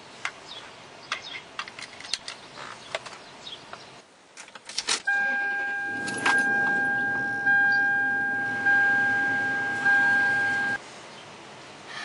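Keys jangling and clicking, then a car's dashboard warning chime dinging five times, about once every 1.2 seconds, before cutting off suddenly.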